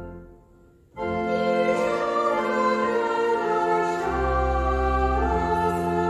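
Church pipe organ chord dying away to a brief near-silence, then about a second in a mixed choir comes in with the organ, singing a hymn in four-part harmony over low pedal notes.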